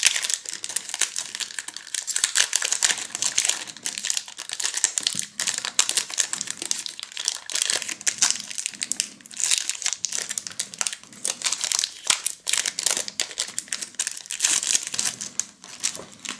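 Foil wrapper of a Match Attax trading-card booster pack crinkling as it is torn open and pulled apart by hand, a dense run of crackles that dies down near the end.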